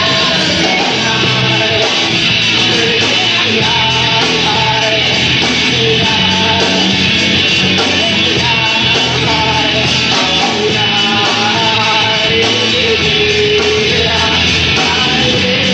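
Rock band playing live: loud, dense rock music that runs without a break.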